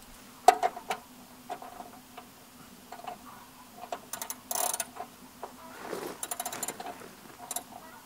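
Ratchet wrench clicking in short runs, with scattered metal clicks, as the oil drain plug is threaded back into the Jeep's oil pan and snugged down.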